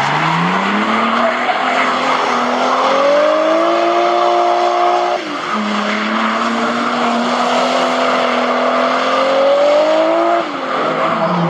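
Nissan S13-chassis drift car held at high revs through a long drift, its rear tyres screeching and smoking. The engine pitch climbs, dips sharply about halfway through, climbs again, then falls away near the end.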